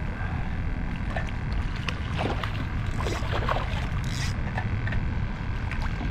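Steady wind noise on the microphone, with a hooked redfish splashing at the surface beside the kayak several times.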